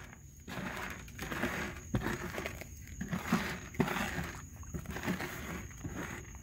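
Dry kibble scraping and rattling across a plastic tray as a hand sweeps it about in repeated strokes, with a young raccoon crunching the food.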